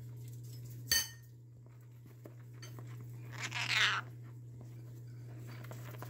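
A conure moving about inside a rolled-up foam mat: a sharp click about a second in, then a short harsh rasp a little past halfway.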